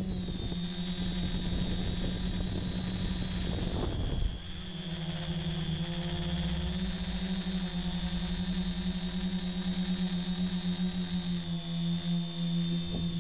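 Electric motors and propellers of a camera-carrying tricopter in flight, a steady multi-tone drone with a high whine. Wind rumbles on the microphone for about the first four seconds, then cuts off suddenly.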